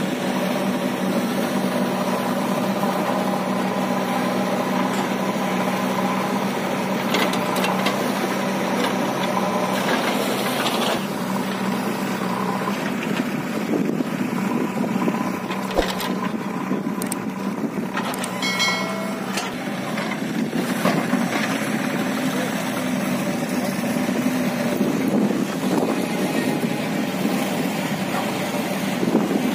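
Heavy diesel machinery running steadily as a backhoe loader digs soil and loads a tractor trolley, with a few knocks along the way.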